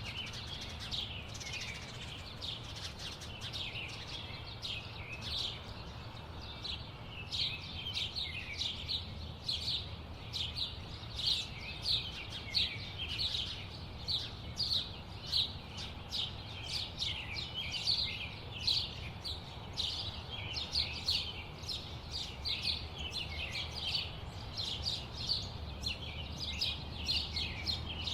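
Many small birds chirping and twittering, several quick chirps a second, over a steady low rumble of city traffic.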